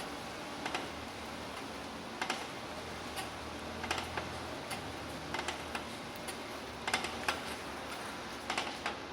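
Irregular short creaks and clicks, a few in quick pairs, over a steady hiss.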